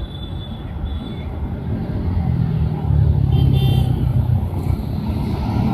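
City road traffic, with a motor vehicle passing close and growing louder about two seconds in before easing off near the end.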